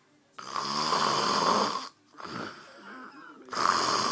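A man snoring loudly in his sleep. One long snore starts about half a second in and lasts about a second and a half, followed by a quieter breath out, and the next snore begins near the end.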